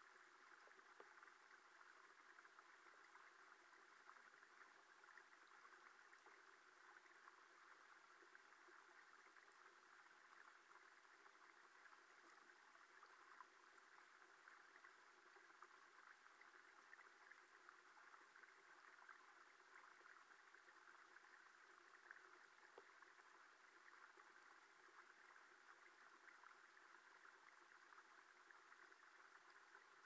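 Faint, steady rush of flowing stream water heard through a camera submerged in the pool, dotted with tiny clicks.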